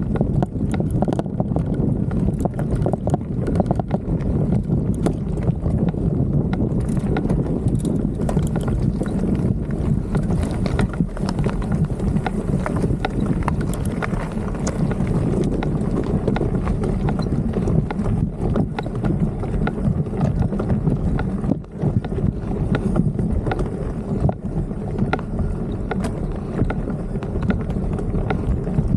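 Insta360 X3 camera rattling and knocking in a loose bike mount as the mountain bike rolls over rough dirt and grass, a steady stream of clicks and knocks over a low rumble of wind buffeting the microphone.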